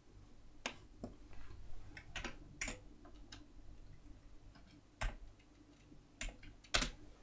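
Typing on an Amiga 1200 keyboard: irregular keystroke clicks, with a louder one about five seconds in and the loudest near the end.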